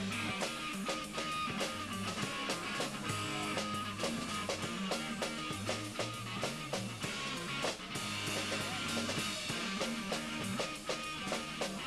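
Live band playing: guitar over a drum kit, with a low line moving note by note underneath.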